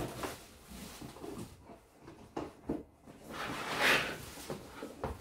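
Cardboard air-fryer box being handled and pulled up off the appliance: a few light knocks, then a louder rustling scrape of cardboard about four seconds in.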